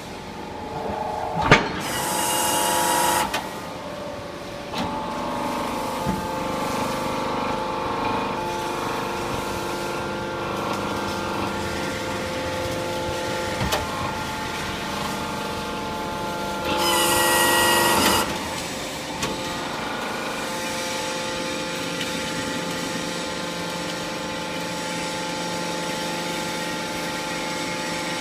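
Hydraulic metal scrap baling press running, its power unit humming steadily. A sharp bang comes about a second and a half in, with a loud hiss for about a second and a half just after it and again for about a second and a half near 17 seconds in, and a few lighter knocks between.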